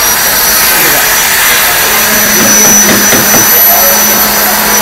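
Loud, steady rushing drone of running workshop machinery, with a low hum and a thin high whine in it.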